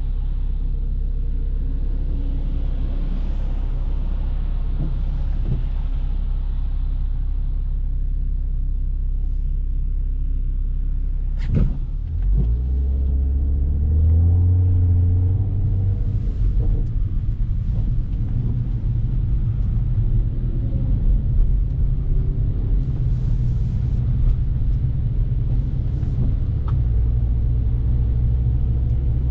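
BMW F30 335i's turbocharged N55 straight-six engine and tyres on snow, heard from inside the cabin as a steady low rumble. A sharp click comes about twelve seconds in, after which the engine note rises for a few seconds as the car pulls, then settles.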